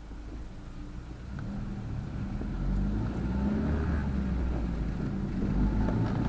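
Low motor-vehicle rumble that grows louder over the first three seconds and then holds steady.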